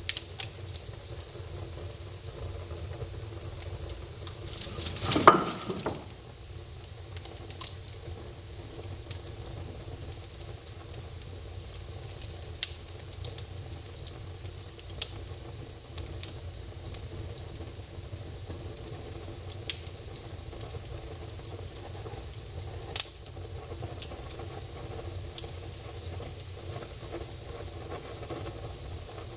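Wood fire crackling in a fireplace: a steady hiss with sharp pops every few seconds, and a louder rush lasting about a second, about five seconds in.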